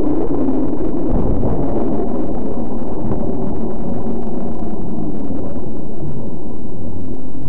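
Car engine and road noise heard from inside the cabin of a moving car: a steady, loud low rumble with scattered faint clicks.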